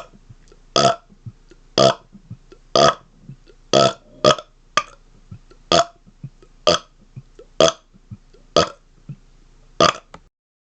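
A man burping: a rapid series of short, loud burps, about one a second, around a dozen in all.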